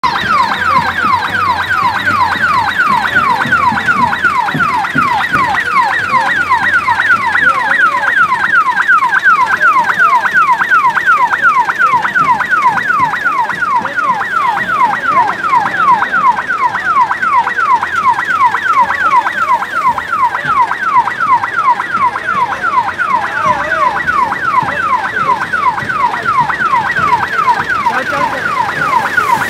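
Electronic siren sounding a fast, steady, repeating falling wail, about three downward sweeps a second.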